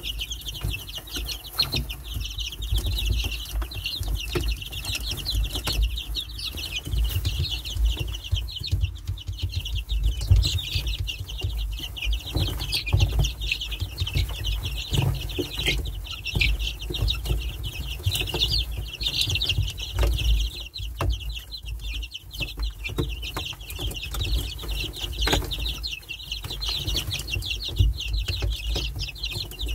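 A brood of chicks peeping continuously in many overlapping short, high calls as they peck at and snatch pieces of a calcium supplement. A low rumble runs underneath.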